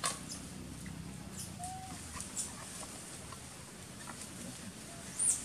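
Short, high-pitched animal chirps and squeaks now and then, the loudest a quick falling chirp near the end, with one short lower call a little under two seconds in, over a low steady hum. A sharp click at the very start.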